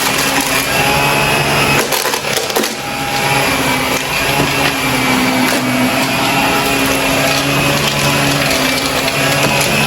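Shark vacuum cleaner running with a steady motor hum while sucking up gritty debris that crackles and crunches through it. About two seconds in the motor's tone briefly drops with a burst of crackling, then it returns to its steady run.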